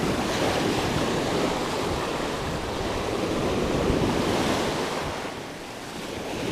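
Sea surf breaking and washing up the sand at the water's edge, a dense rushing wash with wind buffeting the microphone. The wash eases briefly near the end before the next wave comes in.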